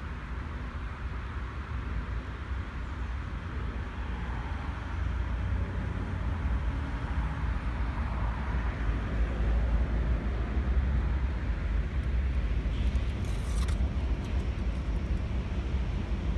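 Road traffic from a nearby motorway: a steady hiss of tyres over a low rumble, getting somewhat louder after about five seconds. A brief crackle about thirteen seconds in.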